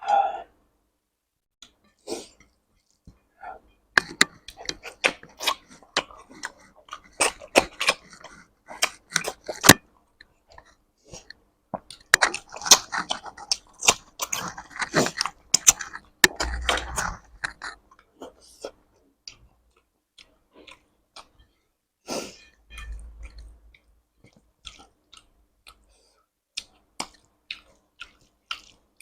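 Close-miked mouth sounds of a person eating a curry and rice meal: chewing with irregular sharp clicks and short wet bursts, busiest in the first half and thinning out to occasional clicks later on.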